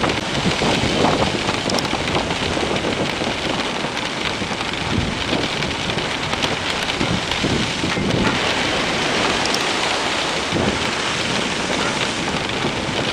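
Storm sound effect: steady heavy rain with low thunder rumbling several times, depicting a great tempest at sea.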